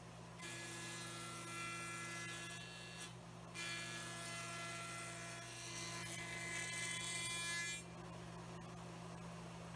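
Router motor running steadily with a whine of evenly spaced tones, a 3/4 inch cove bit shaping white pine on a router table. A hissing cutting noise rides on top and drops out briefly about three seconds in and again near the end.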